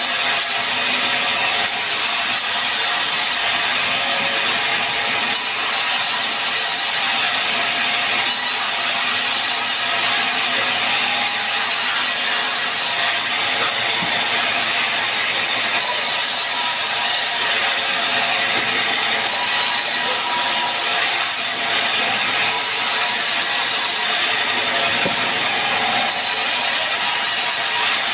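Band sawmill running steadily: a loud, even, mostly high-pitched noise with no breaks.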